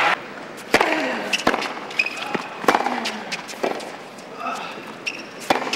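Tennis rally on a hard court: rackets striking the ball and the ball bouncing, several sharp pops a second or so apart.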